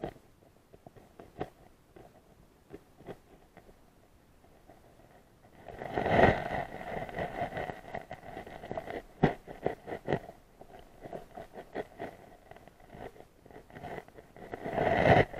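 Muffled underwater sound picked up by a camera held submerged in a creek: scattered small clicks and knocks, with a louder rush of moving water about six seconds in and again near the end.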